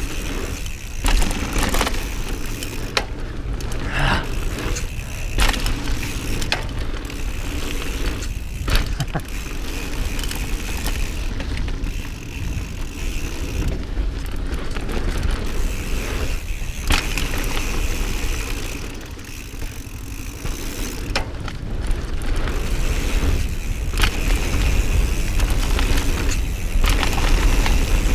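Mountain bike ridden fast down a trail, heard from an onboard action camera: steady wind rush on the microphone and tyre noise, with sharp clattering knocks from the bike over bumps several times.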